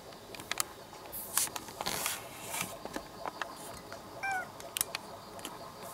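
A cat gives one short meow about four seconds in, among scattered taps, knocks and rustling noises.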